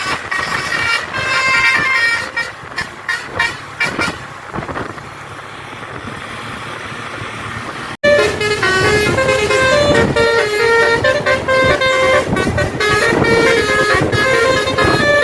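A bus's telolet 'basuri' musical air horn playing a tune of quick stepped notes. It breaks off for a few seconds of quieter road noise. After an abrupt cut it resumes, louder and with a lower-pitched run of notes.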